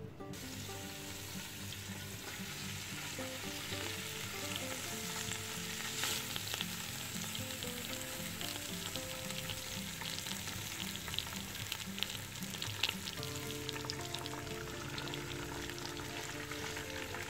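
Hot oil sizzling in a pot as pieces of lavash flatbread are laid in to fry for tahdig, with a few small crackles. Background music with changing notes plays underneath.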